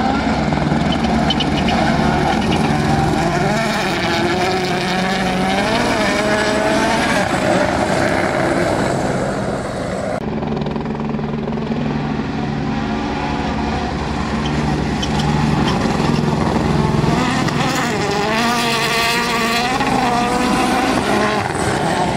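Rally car engines revving hard and shifting gears on a gravel stage, the engine note sweeping up and down in two spells, one in the first half and one near the end. A helicopter's steady hum runs underneath.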